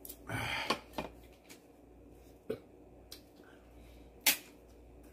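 Close-up eating sounds: a short, loud breathy burst just after the start, a few light knocks, then a single sharp crunch about four seconds in as a piece of crispy fried pork (guobaorou) is bitten.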